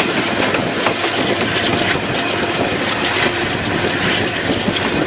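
Train running on the track: a steady, loud rumble with the wheels clattering over the rails.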